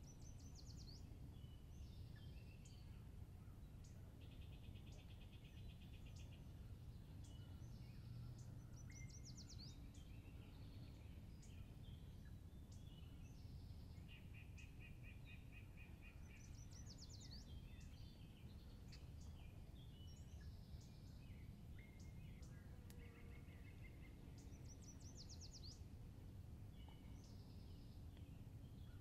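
Faint songbirds singing in spring woodland, several birds overlapping with trills and quick runs of notes, one repeating a short rising phrase about every eight seconds, over a steady low rumble.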